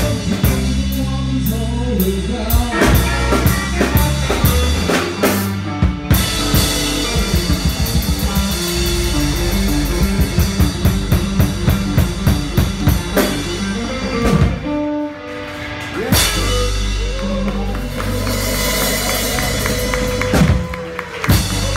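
Live blues band playing: two electric guitars, bass guitar and drum kit. A run of quick, even drum hits comes midway, followed by long held guitar notes near the end.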